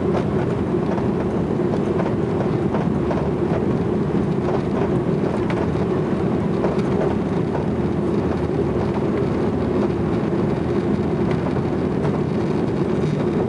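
Jet airliner's engines at takeoff power heard from inside the cabin: a steady, deep rush of noise with faint knocks from the wheels running over the runway.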